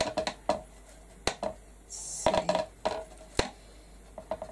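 Hands handling and pressing a plastic stencil against a painted wooden ledge: a scattered series of sharp clicks and taps, with a brief hiss about two seconds in.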